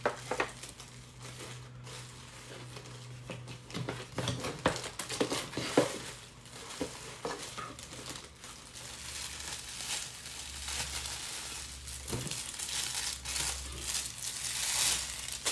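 Clear plastic packaging bag crinkling and rustling as it is handled and an item is pulled out of it, with many irregular crackles, loudest near the end.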